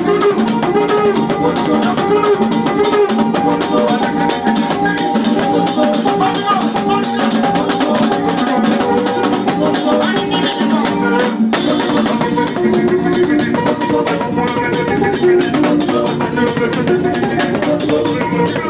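Live band music: a drum kit playing a steady driving beat under electric keyboard parts, loud and close. There is a brief break in the drums about eleven seconds in.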